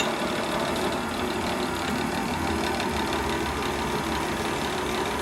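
Metal lathe running with a steady mechanical hum and rumble.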